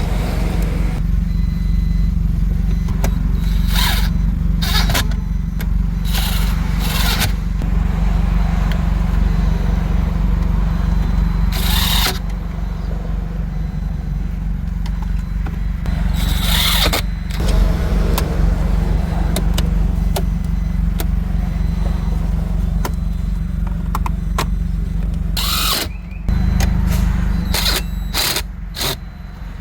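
Steady low engine hum of an idling vehicle, with several short hissy noise bursts over it and a shift in the hum a few seconds before the end.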